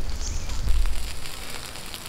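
Charcoal fire crackling and hissing under chicken roasting on the coals, over a low rumble that fades about a second and a half in.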